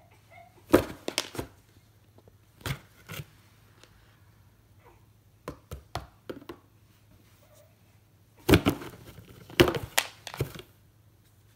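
A cat inside a cardboard box knocks and scrabbles against the cardboard walls as it swats at a toy through a hole: irregular clusters of thumps, scratches and crinkling, loudest about a second in and again near the end.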